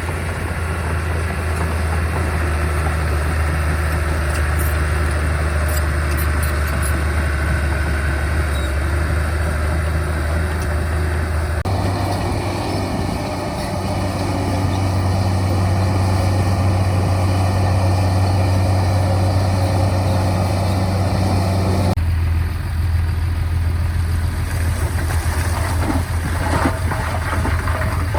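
Heavy construction machinery's diesel engine running with a strong low drone. The sound changes abruptly twice, about 12 and 22 seconds in, and a run of sharp knocks or clanks joins it near the end.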